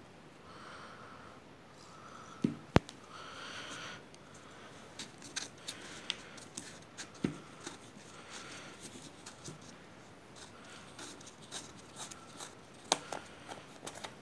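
A plastic honey bottle being handled and its plastic screw cap twisted off: scattered small clicks and scrapes, with two sharp knocks about two and a half seconds in and another sharp click near the end.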